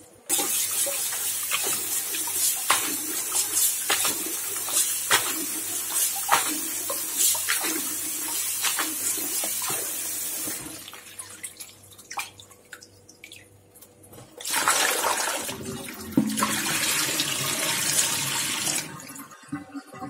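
Kitchen tap running into a plastic bowl in a stainless steel sink while a bunch of parsley is swished and rinsed under it, with repeated splashes. The flow drops away about halfway through, leaving a few drips, then runs again for several seconds near the end.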